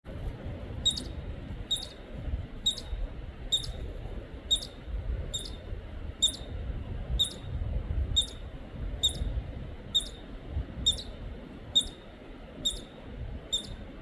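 A short, high squeak or chirp repeating at a very even pace, a little more than once a second, over a low rumble.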